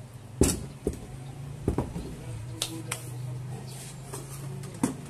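Sharp clicks and knocks from hands working on an audio mixer's circuit board and metal chassis, about six taps spaced irregularly, over a steady low hum.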